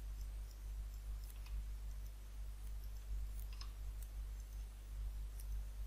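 Computer mouse clicking: several short, sharp clicks spaced irregularly over a steady low hum.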